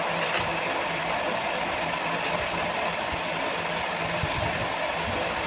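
Steady hum and hiss of a running motor with a faint low tone, unchanging throughout.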